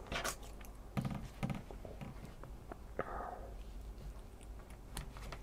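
A few light clicks and taps from handling a micro quadcopter and pulling apart its battery plug; no motors are running.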